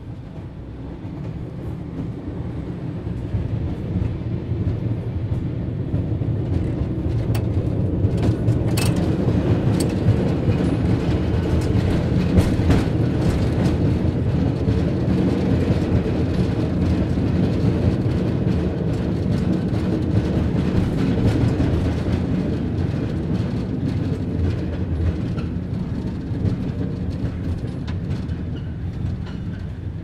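Cable car running with a low rumble and scattered clicks and rattles, growing louder over the first several seconds and easing off toward the end.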